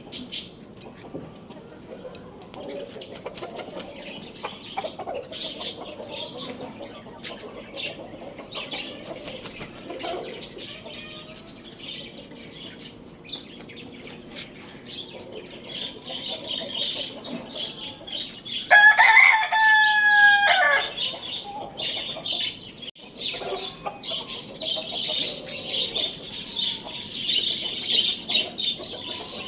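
A rooster crows once, a loud crow of about two seconds roughly two-thirds of the way through. Around it are softer rustling, scattered clicks and faint bird calls, which grow busier and higher-pitched near the end.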